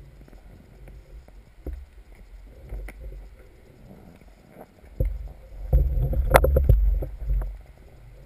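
Underwater noise picked up by a speargun-mounted camera during a freedive: a low rumble of water moving past the housing with scattered knocks and clicks. It gets louder and busier from about five to seven and a half seconds in, with one sharp click near the middle of that stretch.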